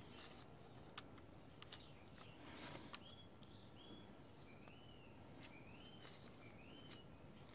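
Near silence, with a few faint clicks of a small hand tool on the little bolts of a motorcycle engine's power valve link plate. From about three seconds in, a faint bird call repeats about five times, each note a short whistle that rises then falls.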